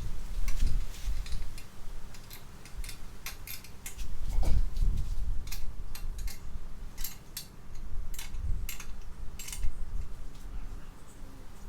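Irregular light metallic clicks and clinks, with a few dull low knocks, as metal tools and parts are handled on a workbench.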